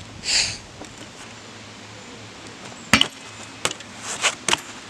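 BMX bike ridden on concrete: a short tyre scuff just after the start, a sharp loud knock about three seconds in, then a few lighter clicks and knocks.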